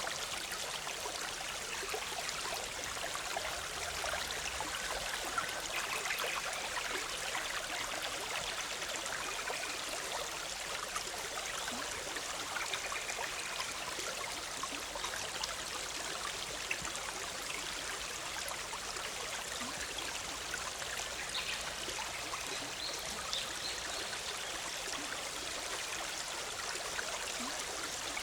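Forest stream bubbling and trickling over rocks, a steady rush of water. A few faint short bird calls sound now and then above it.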